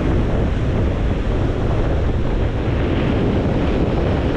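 Ocean surf washing in, a steady rush of water, with wind rumbling on the microphone.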